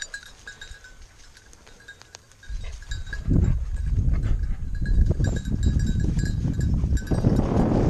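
Bell on a springer spaniel's collar tinkling as the dog works the cover. From about two and a half seconds in, a loud low rumble on the microphone covers much of it.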